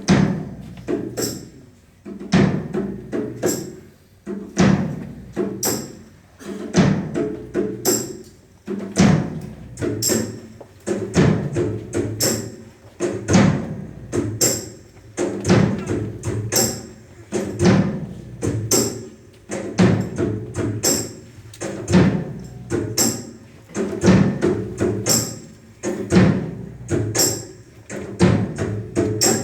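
Music with a steady percussive beat, a strong accent about every two seconds and lighter hits between.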